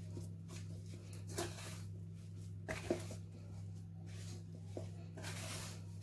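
Soft, sticky yeast dough being kneaded by hand in a bowl: irregular soft squishing and rubbing, with a light knock against the bowl about a second and a half in and another near three seconds. The dough is still too soft and wants more flour. A steady low hum runs underneath.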